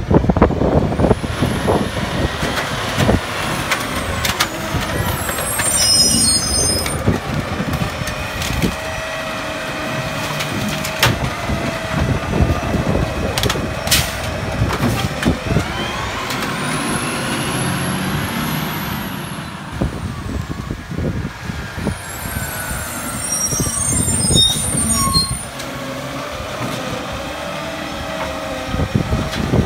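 Autocar ACX garbage truck with a New Way Roto PAC automated side-loader body: the diesel engine runs while the hydraulic arm lifts and dumps curbside carts, with a high whine that rises and falls as the arm cycles, a few knocks, and air-brake hisses.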